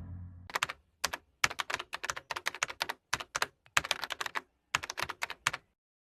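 Computer keyboard typing as a sound effect: an irregular run of sharp keystroke clicks in quick clusters with a few short pauses, stopping shortly before the end. The low tail of a loud sound fades out under the first keystrokes.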